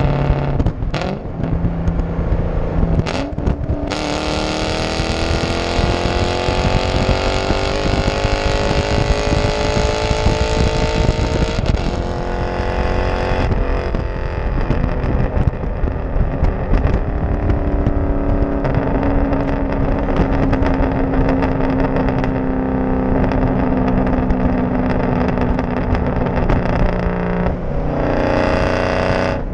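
2003 Ford Mustang Mach 1's V8 at wide-open throttle: a 3–4 upshift in the first few seconds, then the engine note climbs steadily in fourth gear. About twelve seconds in the throttle closes, and on deceleration the exhaust pops and crackles over the lower, steady engine note until near the end, when the note jumps up again.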